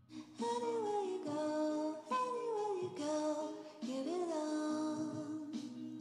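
Background music: a voice singing a gliding melody in short phrases over a steady held accompaniment.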